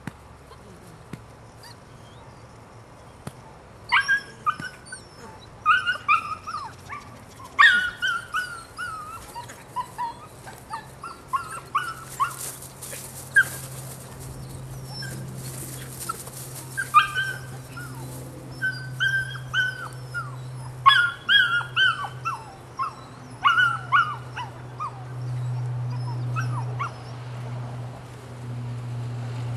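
Nine-week-old Belgian Malinois puppy whining and yelping while it is held, in repeated short bursts of high cries that fall in pitch, starting about four seconds in.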